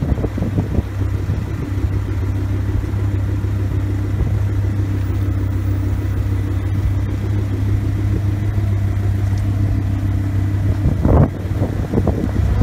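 Engine of a Tumbler-style Batmobile replica idling steadily, with a couple of short, louder bursts near the end.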